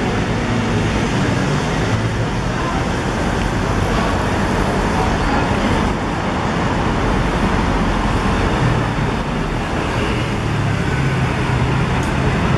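City street traffic: a steady wash of engines and tyres on the road, with the low hum of a nearby engine growing stronger near the end.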